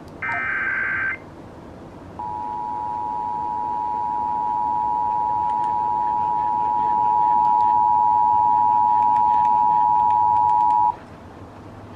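The last burst of an Emergency Alert System header, a buzzy data tone about a second long. After a short pause comes the EAS two-tone attention signal (853 and 960 Hz), held steady for about nine seconds, getting louder over its first few seconds and then cutting off. It marks the start of a new emergency alert.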